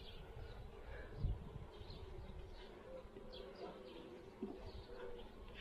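Honeybees buzzing around an opened hive, a steady, fairly faint hum that wavers in pitch. There is one dull knock about a second in.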